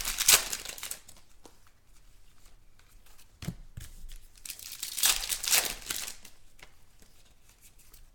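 Trading-card pack wrappers crinkling and tearing as packs are opened and cards handled. There are three short spells of rustling: at the start, about three and a half seconds in, and around five to six seconds in.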